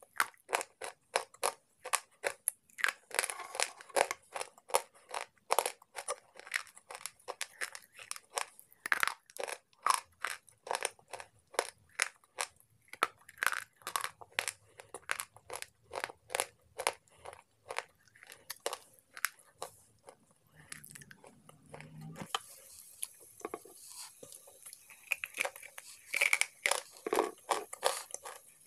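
Slate pencils being bitten and chewed close to the microphone: sharp, rapid crunching, several crunches a second, with a short break about twenty seconds in before the crunching picks up again.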